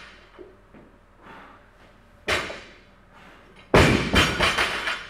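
Loaded barbell with rubber bumper plates dropped onto a rubber gym floor: a lighter thud about two seconds in, then a loud crash a second and a half later as the plates bounce and rattle for about a second.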